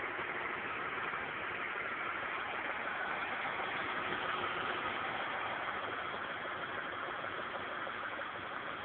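BMW E36 320i's straight-six engine idling steadily, with a rattle from the engine bay.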